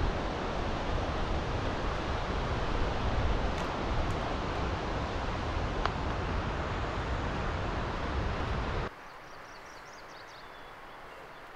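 Wind rushing and buffeting the microphone, cutting off abruptly about nine seconds in to a much quieter outdoor background with a few faint bird chirps.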